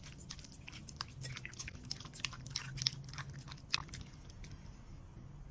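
Kitchen tongs tossing raw chicken pieces in beaten egg in a ceramic bowl: wet squelching with quick clicks. It is busiest for the first four seconds, then thins out.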